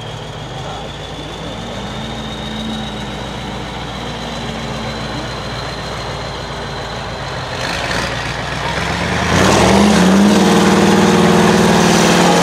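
A six-wheel-drive trial truck's diesel engine working under load as it crawls over mud mounds, with a faint high whine slowly rising in pitch. About nine seconds in it revs up hard and gets much louder, and holds there.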